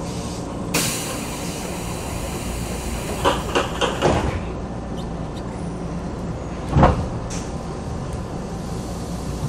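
Inside a Keisei 3500-series commuter car standing at a station: a sudden hiss of air about a second in, a cluster of knocks around three to four seconds, and a heavy thud near seven seconds, as the pneumatic sliding doors close before the train pulls out.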